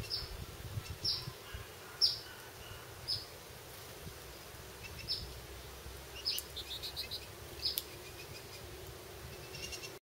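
Lesser goldfinches calling: short, high chirps that drop in pitch, about one a second, with a quick run of short notes about seven seconds in.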